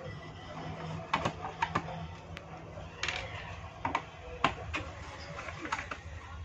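Screwdriver undoing the screws on the plastic underside of a cable TV set-top box: scattered small clicks and scrapes of the bit in the screw heads and the casing, over a low steady hum.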